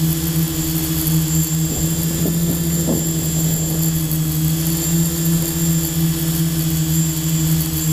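Quadcopter drone's electric motors and propellers humming steadily with a thin high whine, with a few brief shifts in pitch between about two and three seconds in.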